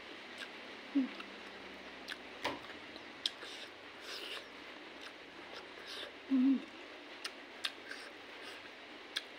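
Close-up eating sounds from a meal eaten by hand: wet mouth smacks and chewing clicks. Two short low hums come about a second in and, louder, around six and a half seconds in.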